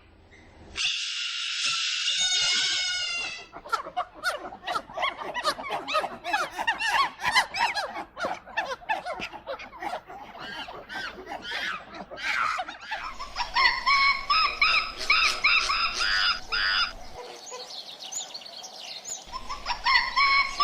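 A string of animal call sound effects: a drawn-out call early on, then a dense run of many overlapping chirps, then repeated short bird-like chirps in two bursts.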